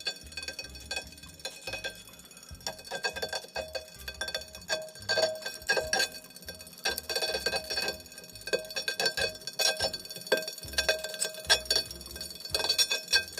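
Irregular light metallic ticking and clinking from the motor brake of a Tacx Neo series smart trainer, with a ringing after each tick: metal touching metal, a sign of metal pieces or dust stuck to the magnet in the motor brake.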